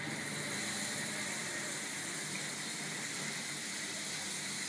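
Lemon juice poured from a glass bowl into a hot wok of fried green chillies, a steady hiss of liquid splashing and sizzling on the hot pan.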